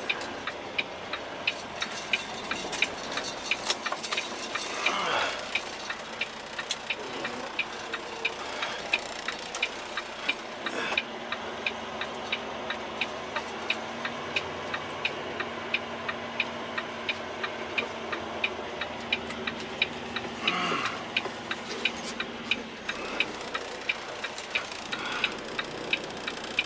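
A semi-truck's flasher clicking steadily about twice a second inside the cab, over the diesel engine running at low speed. Two brief whooshing swells come through, about 5 seconds in and again near 20 seconds.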